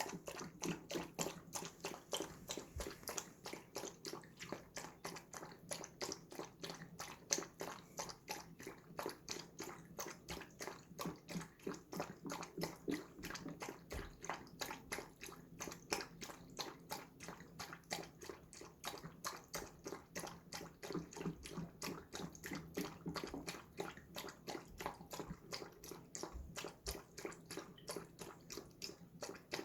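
A dog lapping water with its tongue, a steady run of wet laps at about three a second.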